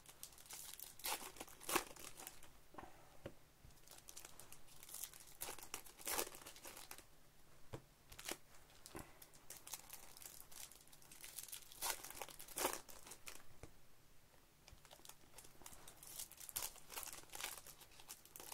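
Wrapper of a Topps baseball card silver pack crinkling and tearing as it is worked open by hand, in irregular crackly bursts.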